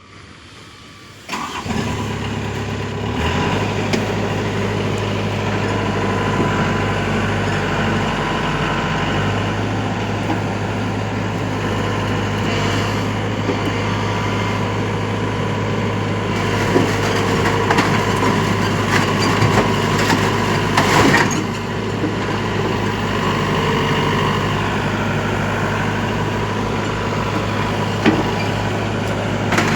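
Excavator engine starting about a second in, then running steadily at a low, even hum, with a few knocks later on.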